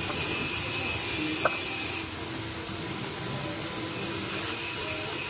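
Steady rushing, machine-like background noise, with one light click about a second and a half in.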